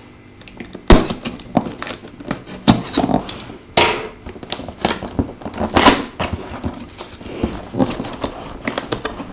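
A cardboard shipping box being handled as its top seal is opened: irregular scrapes, rustles and sharp knocks of the cardboard, the loudest knock about a second in.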